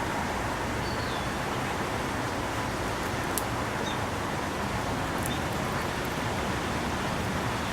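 Steady outdoor rush of background noise, with a few faint, brief bird chirps about a second in, around four seconds in, and just after five seconds, plus a single small click in the middle.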